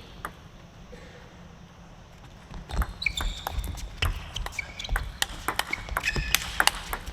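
Table tennis rally: the plastic ball clicking off rackets and table in quick, uneven succession, starting about three seconds in after a quiet start, with a few short high squeaks among the hits.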